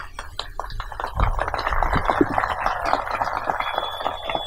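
Crowd applauding: scattered claps at first, filling out into steady applause about a second in.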